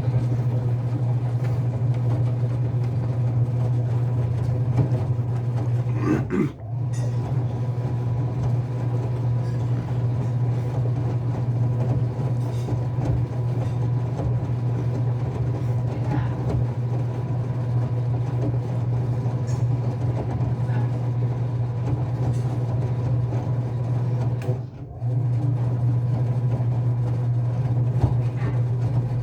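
Enxuta Euromatic washing machine running with a steady low motor hum, which drops out briefly twice, once about six seconds in and again near the end.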